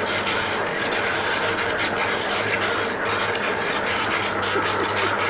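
Water-cooled drilling machine running steadily: a constant motor hum under an uneven high hiss.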